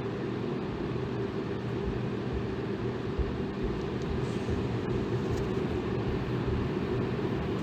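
Electric fan running steadily: an even, low rushing noise with a faint hum underneath.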